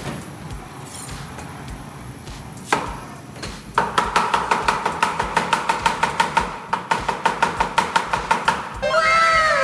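Chef's knife rapidly chopping a red onion on a wooden cutting board, about five even strokes a second starting around four seconds in, over a steady high tone. Near the end, several falling tones sound one after another.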